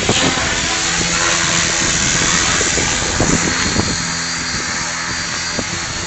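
Helicopter's engine and rotor running steadily at close range, easing off slightly from about four seconds in.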